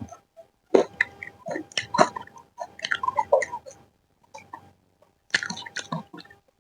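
Close-miked chewing and mouth sounds of a person eating, in irregular clusters of small clicks and smacks, with a pause of about a second and a half past the middle.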